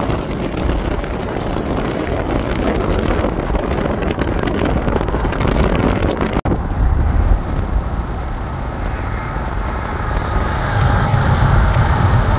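Steady car road and wind noise, then, after a cut about halfway through, a freight train's diesel locomotives passing with a low rumble that grows louder over the last couple of seconds.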